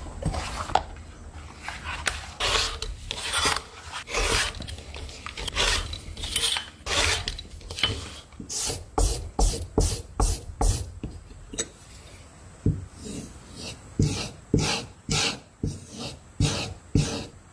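A hand tool scraping or rubbing against material in repeated short strokes. The strokes come irregularly at first, then quicken to about two or three a second partway through.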